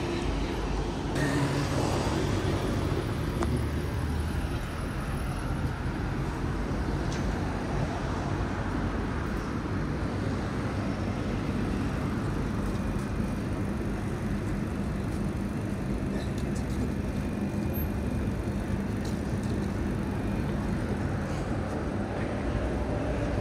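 Street traffic noise: cars and other vehicles running along a busy city road, a steady low rumble.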